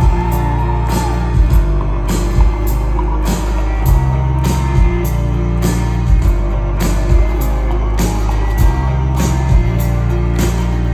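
Live band playing a song, with drums keeping a steady beat over bass and guitars.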